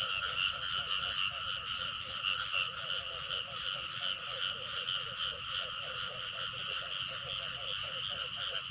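A dense chorus of frogs calling: many overlapping croaks pulsing rapidly and without a break.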